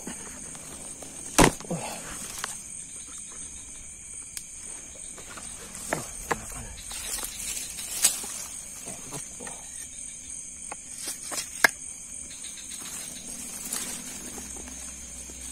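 Steady high-pitched chirring of crickets and other insects, broken by a few sharp knocks or clicks, the loudest about a second and a half in.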